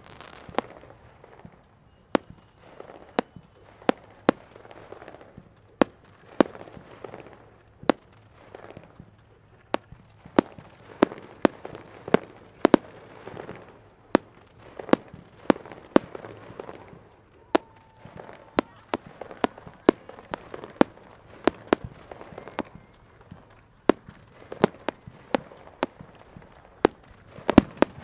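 Aerial fireworks display: a steady, irregular string of sharp bangs, often one or two a second and sometimes in quick clusters, each followed by a rolling rumble.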